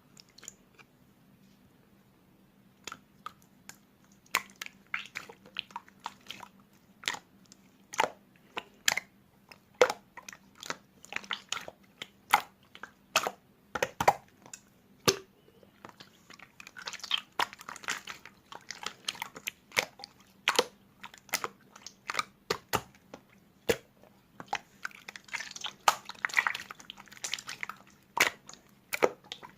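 Slime being squeezed and pressed by hand, making sharp wet popping clicks about one or two a second. Twice, about halfway through and again near the end, it turns to a denser crackling for a couple of seconds.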